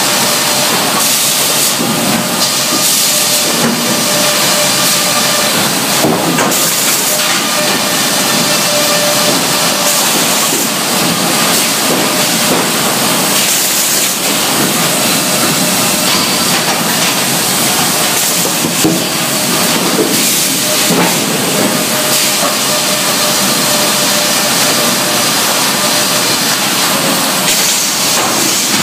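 Sawmill headrig working a log: a loud, continuous hissing din of the saw and its carriage machinery, with scattered knocks and clanks as the log and sawn boards move on the carriage and rollers.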